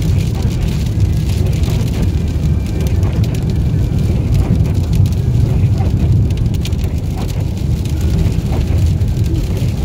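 Car driving at road speed, heard from inside the cabin: a steady low rumble of engine and tyres, with faint scattered ticks in the middle.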